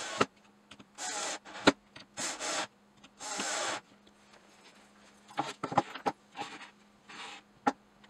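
Cordless drill/driver running in several short bursts, each about half a second, as it drives small screws into a brass hinge plate on a pine board. In the second half there are scattered light clicks and knocks.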